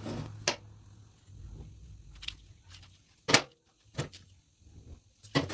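A handful of sharp clicks and knocks from tools and wire being handled while tail light wiring is spliced, the loudest about three and a half seconds in.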